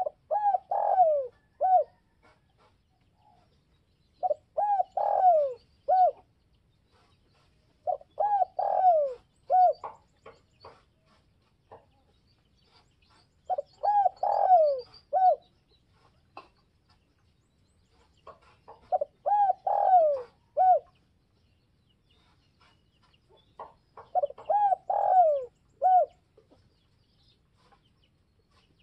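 Spotted dove cooing: six phrases of several coos, each with falling notes, one about every five seconds. This is the call of a decoy bird kept to stir up wild doves.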